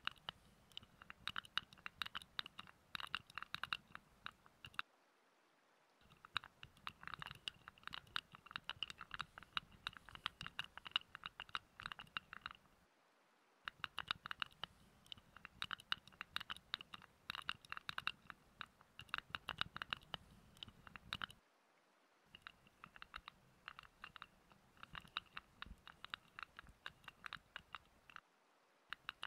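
Rapid, dense scratching and rubbing very close to the microphone, the hand sounds of an ASMR massage roleplay, in stretches of several seconds broken by short dead-silent gaps.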